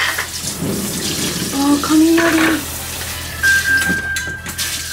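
Kitchen tap running a steady stream of water into a sink.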